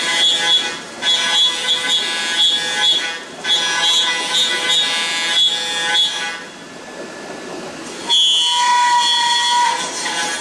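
A 10 mm flat endmill at 10,000 rpm cutting AL6061 aluminium on a Hwacheon L1 2500 double-column machining center: a steady, high-pitched cutting whine made of several tones. About six seconds in the whine stops for nearly two seconds, leaving only a steady hiss, then the cut starts again.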